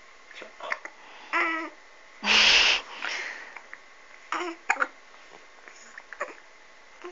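A girl hiccuping, with short breathy catches and small voiced sounds between them, and one loud breathy burst a little over two seconds in.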